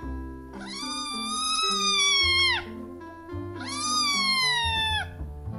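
A Munchkin kitten meowing twice, two long, loud cries that each rise slightly and then drop at the end, protesting at having its rear cleaned. Background music plays underneath.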